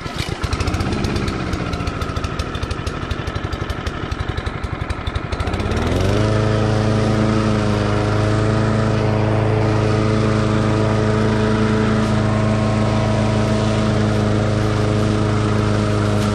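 Cub Cadet SC500K's 173cc mower engine cutting tall, thick grass. It runs choppy and pulsing for the first five seconds or so, then its pitch rises and it settles into a steady, even drone.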